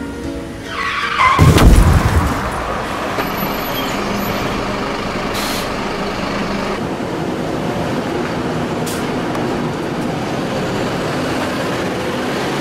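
Single-decker city bus at a bus stop: a short falling squeal, then a loud burst of noise at about a second and a half, then the bus's engine running steadily under street noise.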